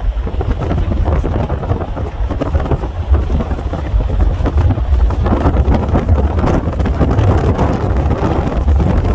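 Strong, gusty wind buffeting the microphone near a tornado: a loud, low rumble that builds over the first second, then swells and dips.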